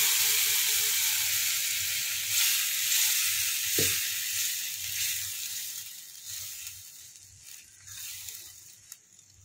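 Sizzling of a hot onion-tomato tadka as cooked moong and masoor dal is poured into it in a nonstick pan, dying down steadily over several seconds, while a wooden spatula stirs the mixture.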